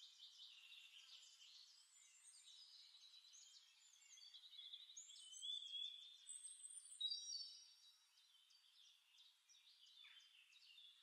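Near silence, with faint high-pitched chirping and twittering from birds, loudest about midway.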